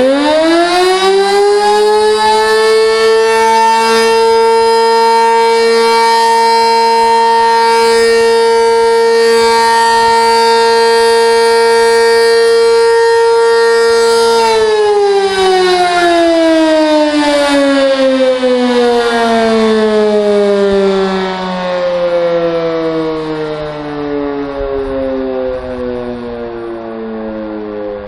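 Sentry 16V1T-B electromechanical outdoor warning siren sounding a test: it winds up quickly to a loud steady tone, holds it for about fourteen seconds, then winds down in a long falling pitch that is still sounding at the end.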